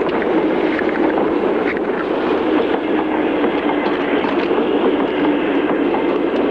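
Steady rumble of a passenger train running, heard from inside a sleeping-car compartment, with a few faint clicks from the wheels.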